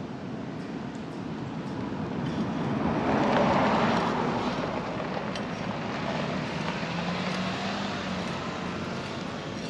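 Two cars passing on a road one after another. The first is the loudest and swells to a peak about three and a half seconds in. The second follows about seven to eight seconds in, with a low steady hum.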